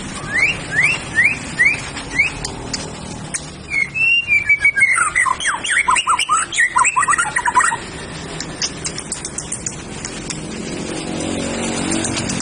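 White-rumped shama singing: five quick rising whistles in the first two seconds, then, about four seconds in, a fast run of varied sweeping notes lasting about four seconds.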